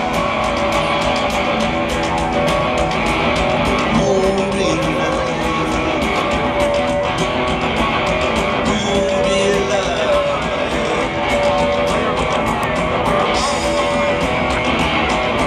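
Live rock band playing an instrumental stretch on electric guitars and drums, with many drum and cymbal hits and held guitar notes, loud through a concert sound system.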